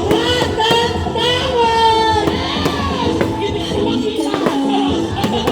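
Music: a song with a singing voice carrying a melody over held tones and sharp percussive hits.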